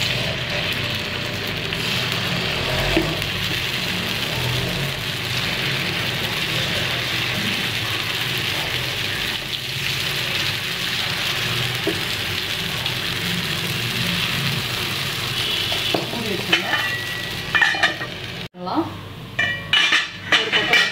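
Paniyaram batter sizzling steadily as spoonfuls drop into the hot oil in the wells of a kuzhi paniyaram pan. Near the end there is a sudden break, then a few short clicks and knocks of utensils.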